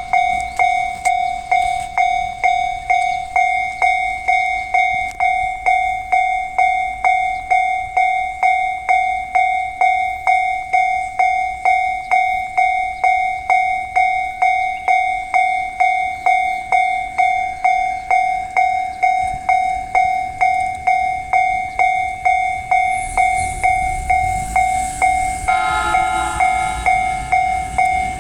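Japanese level-crossing alarm bell ringing steadily, about two strikes a second on one ringing tone. Near the end the noise of an approaching JR E531 series electric train rises under it, with a rush and a few added steady tones.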